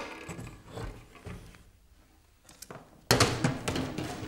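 Objects and papers being handled on a cluttered table: a sharp click, faint rummaging, then a loud burst of rustling and clattering about three seconds in.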